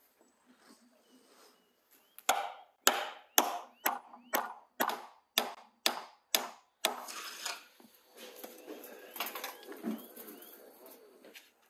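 A run of about nine sharp chopping blows, roughly two a second, followed by a few seconds of softer, irregular scraping and handling noise. Birds chirp faintly throughout.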